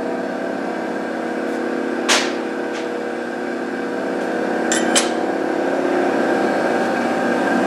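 Connecting-rod cap grinder's electric motor running steadily, a hum with several even tones. A short hiss comes about two seconds in, and a few sharp metal clicks come around five seconds, as a rod cap is handled in the clamping fixture.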